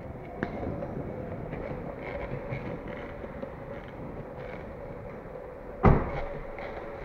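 Longboard wheels rolling on a smooth painted concrete floor: a steady rumble with an even hum, and one loud thump about six seconds in.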